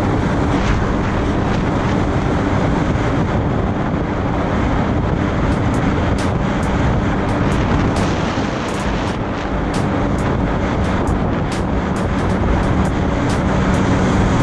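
Yamaha WaveRunner jet ski running steadily under way, its engine's hum mixed with water rushing past the hull and wind on the microphone. The engine eases off a little about two-thirds of the way through, then picks up again.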